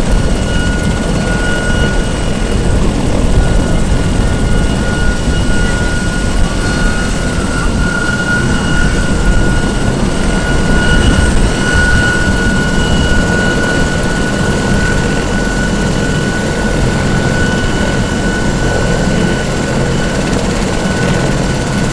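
Bell 412EP helicopter running loudly and steadily, its turboshaft engines giving a high, steady whine over the low rumble of the rotor.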